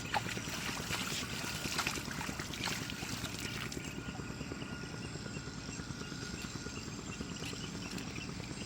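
Water splashing and trickling in short bursts over the first few seconds, then a steady even hiss with a low rumble.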